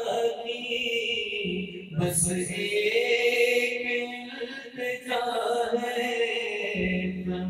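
A man singing a devotional song into a microphone, unaccompanied, drawing out long wavering notes with short breaks for breath about two and five seconds in.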